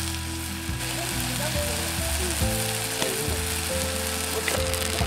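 Okonomiyaki sizzling and frying on a hot griddle, a steady hiss, with background music.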